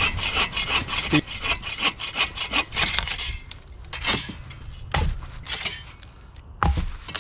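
Hand saw cutting through a piece of firewood in quick back-and-forth strokes, with a couple of short pauses and a knock near the end.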